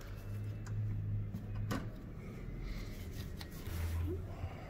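A few sharp clicks and light rubbing as a wire and its ring terminal are handled and fitted onto a starter solenoid stud, the loudest click about a second and a half in, over a low steady hum.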